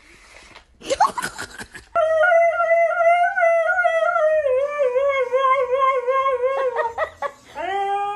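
Husky howling: one long, wavering howl of about five seconds that slowly sinks in pitch, then after a short break a second howl rising near the end. Brief crackling rustle about a second in, before the howling starts.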